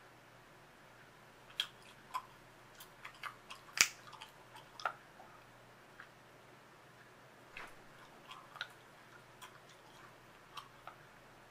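Gum being chewed: scattered wet clicks and smacks, the sharpest about four seconds in, with a quiet spell in the first second and a half and another around six to seven seconds.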